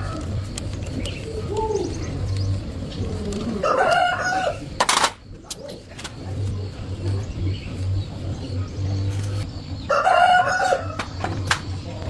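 A rooster crowing twice, each crow about a second long, with a sharp click shortly after the first crow.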